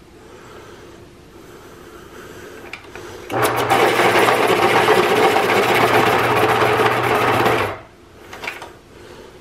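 X-Acto Teacher Pro electric pencil sharpener motor starting about a third of the way in and running with the grinding of its cutter on a colored pencil for about four and a half seconds, under a steady hum. It then cuts off abruptly while the pencil is still in the hole, as the sharpener stops once the point is fully sharpened.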